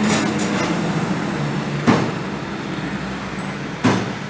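Car engine idling steadily, its note dipping slightly about a second and a half in, with two short sharp knocks about two seconds apart.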